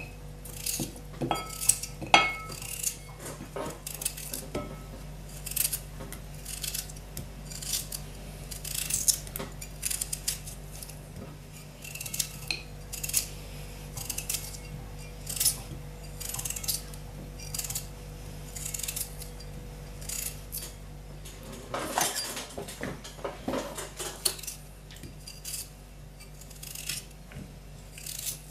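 A small kitchen knife cracks chunks off a raw peeled potato, and the pieces drop into a glass bowl, making a run of short, irregular clicks and knocks about once or twice a second. A denser cluster comes near the end.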